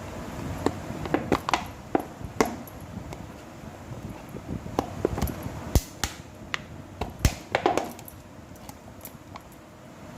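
A safety pin being pushed through a thin plastic box to pierce rows of holes, making irregular sharp clicks and taps of plastic, the loudest about six and seven seconds in.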